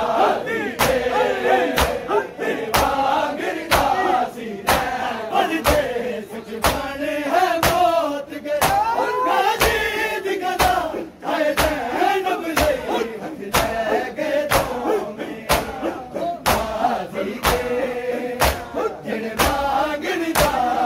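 A crowd of men performing matam, slapping their chests with open hands in unison at about two slaps a second, while men's voices chant a mourning noha over the beat.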